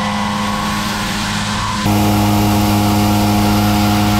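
SYIL X5 CNC mill face-milling heat-treated 4140 steel with a 2-inch Kennametal Dodeka shell mill at about 1240 rpm: a steady cutting drone with a hum underneath, which gets louder about two seconds in.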